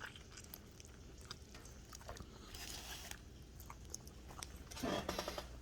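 Faint chewing of a bite of grilled bologna and cheese sandwich on crunchy grilled bread, with small wet clicks of the mouth and a short breath about halfway. A brief hum of the voice comes near the end.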